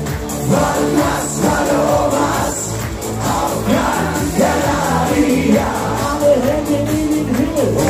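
Live music: a man singing into a microphone over loud amplified music with a steady beat, with the crowd audible underneath.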